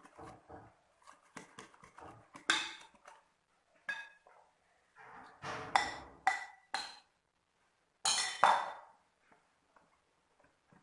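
A spoon clinking, knocking and scraping irregularly against a mixing bowl as flour is stirred into thick cake batter, with a few louder knocks against the bowl.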